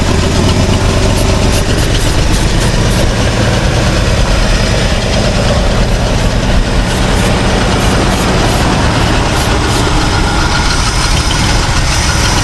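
1969 Ford F250's V8 idling steadily, with two runs of short aerosol spray bursts. This is a spray test around the carburetor for a vacuum or exhaust leak, which the owners suspect comes from a leaking carburetor base gasket.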